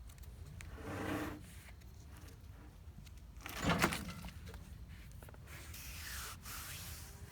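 A few brief scraping and rubbing sounds, the loudest just under four seconds in, as the freshly sawn log surface is handled.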